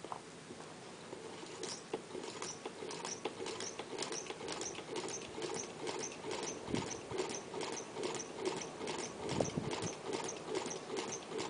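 Newman motor running after being switched on, clicking in an even rhythm about three to four times a second over a low hum. The clicks start about one and a half seconds in.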